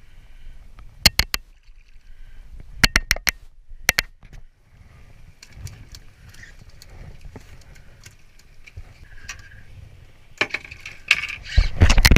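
Sharp clicks and knocks of rod-and-reel handling while a saithe is brought in. Near the end comes a louder clatter of knocks and rattling as the fish comes aboard onto the aluminium checker-plate deck.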